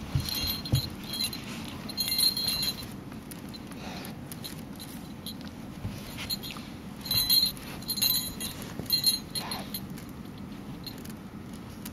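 Small jingle bell on a Great Dane puppy's collar jingling in short bursts as the puppy squirms and plays, with rustling of blankets in between and a couple of dull thumps near the start.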